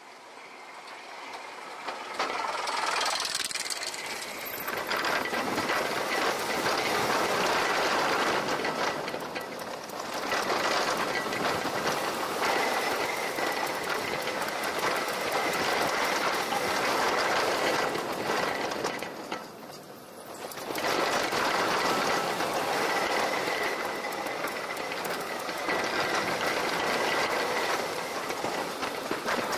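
Tornado roller coaster train running along its steel track: a loud rushing and rattling that swells and fades several times as the cars pass, with a faint steady whine and a short lull about two-thirds of the way through.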